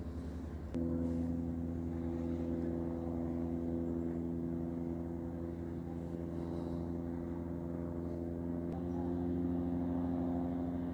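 Engine running steadily with a low, even hum of fixed pitch; the hum shifts suddenly to a slightly higher, louder note about a second in.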